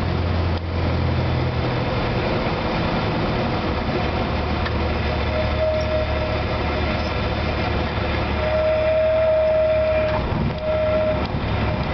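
Cessna 172 Skyhawk cabin during the landing flare and rollout: the piston engine drones steadily at low power over air rush, its low hum dropping about two seconds in. The stall warning horn sounds a steady tone three times, short, then long, then short, the usual sign of the wing nearing the stall as the plane is held off for touchdown.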